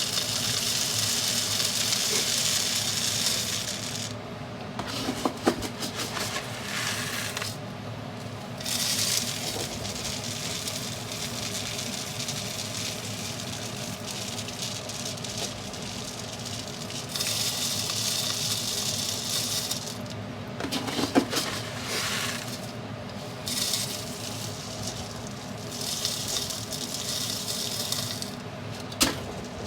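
Bird seed pouring and rattling into a plastic 2-liter bottle, in several pours with quieter stretches between. A couple of sharp knocks, about five and about twenty-one seconds in.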